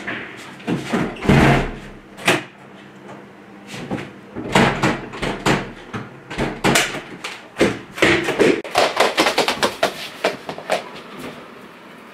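Indoor knocks and bangs: a door is shut with a bang about a second in, followed by scattered knocks and thumps, and from about eight seconds a fast run of knocks, several a second.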